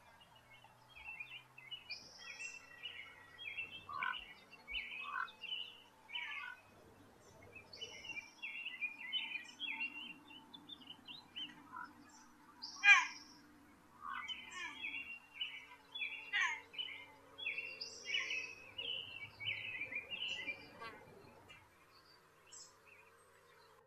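Bird song: bouts of quick chirping notes repeated through most of the stretch, with one louder, sharply falling call about 13 seconds in. The song dies away a couple of seconds before the end.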